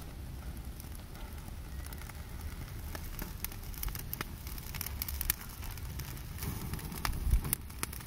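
Campfire crackling: irregular pops and snaps over a steady low rumble.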